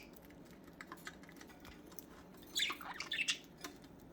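Budgies pecking at seed treats with light clicks and taps of beaks, and two short squawks about two-thirds of the way through.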